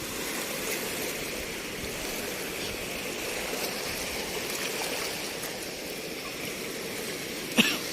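Steady rush of shallow seawater washing over a coral reef flat. A short sharp knock comes near the end.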